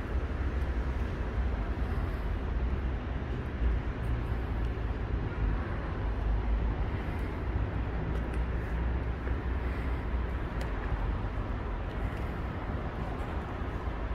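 Steady city traffic noise, mostly low-pitched, with no distinct events.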